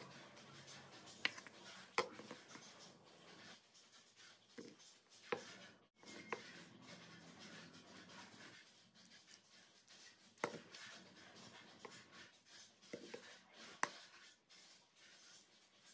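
Faint rubbing and handling of small wooden parts on a tabletop, with a few sharp light taps and clicks as pieces are moved and set down.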